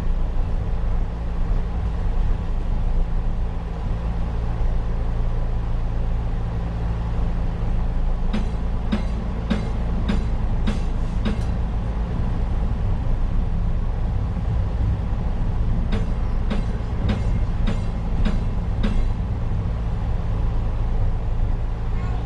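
P865 light-rail car #144 running on old jointed track, heard from its cab: a steady low hum, with two runs of sharp wheel clicks over rail joints, about two a second, partway through and again later.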